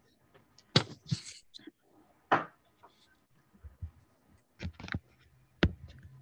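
Scattered clicks and knocks, with a brief rustle, from a laptop or its microphone being handled and bumped, heard over a video-call connection.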